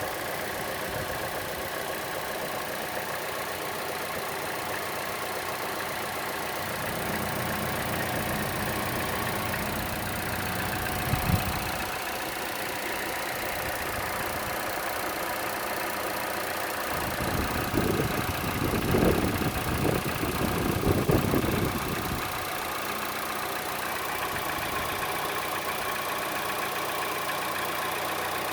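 Chevrolet Cruze engine idling with a ticking that is louder than the normal engine tick and stronger on the belt side; its cause is unknown to the owner. A few seconds of louder low rumbling and thumps come about two-thirds of the way in.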